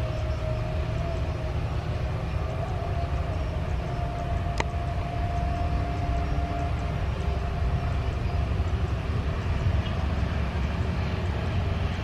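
Jet airliner engines with a steady whine, under a heavy low rumble of wind buffeting the microphone. A single sharp click about four and a half seconds in.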